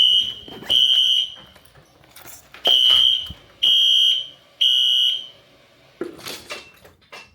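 Fire alarm beeping in a high, piercing tone: two beeps, a pause, then three evenly spaced beeps about half a second each, the three-beep evacuation pattern. The alarm is going off in short spells.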